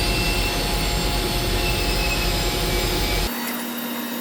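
Steady machinery noise with a strong low rumble. About three seconds in it changes abruptly to a quieter, steady hum with a single low tone.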